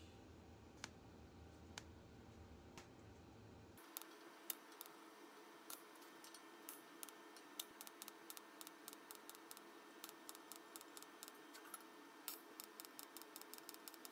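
Near silence: faint room tone with a low hum that cuts off about four seconds in, then scattered small clicks that come quicker in the second half.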